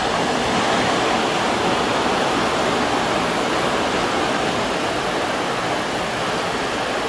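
A steady rushing noise with no distinct events.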